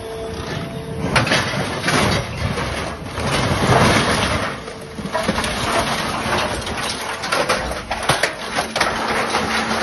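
Scrap metal clattering, scraping and banging as an orange peel grapple's tines dig into a scrap pile, close on a length of pipe and lift it out, with a steady hum from the materials handler underneath in the second half.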